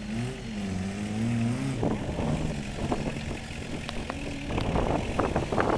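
Auverland 4x4 trial vehicle's engine running at low revs, its pitch rising and falling as it crawls down a steep dirt bank. From about two seconds in, irregular knocks and crunches of the tyres and chassis over rocks and loose dirt join the engine, thickest near the end.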